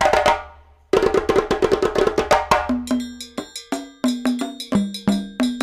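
Background music: a light, bouncy tune of quick percussion strikes, like wood blocks, with short plucked-sounding notes, breaking off for about half a second near the start.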